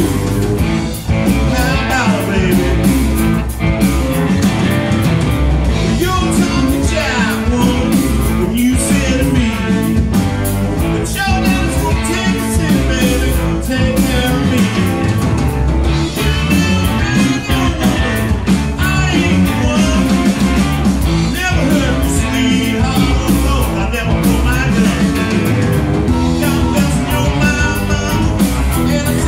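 Live rock band playing: drums, bass, two electric guitars and keyboard, with a lead singer.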